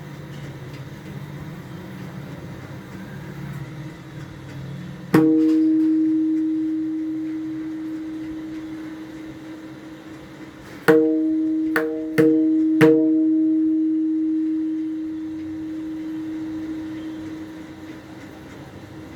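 Pakhawaj's tuned treble head struck in a tone check: one stroke about five seconds in, then four strokes in quick succession about six seconds later, each ringing on at one clear steady pitch and slowly fading. A low hum sits under the first few seconds.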